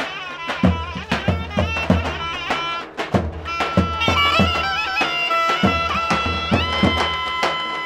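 Traditional folk dance music: a reedy wind-instrument melody with quick ornamented bends over regular drum beats, the drums dropping out briefly about three seconds in.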